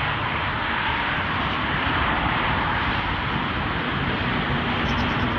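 Steady rushing noise of inline skating at speed: wind buffeting the camera microphone together with the skate wheels rolling on pavement.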